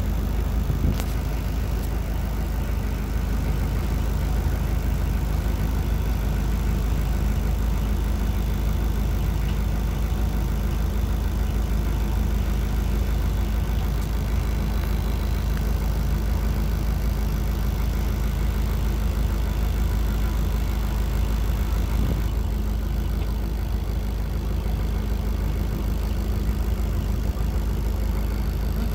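Boat motor running steadily at low speed, an even low drone with no change in pitch.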